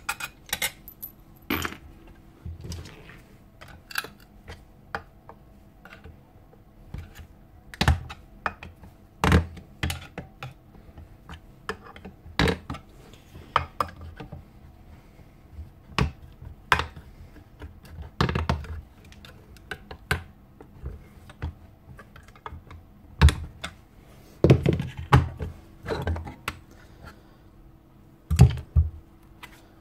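Irregular clicks, knocks and clatter of metal tools and parts as an old Makita 1125 planer is taken apart by hand, with a few louder knocks.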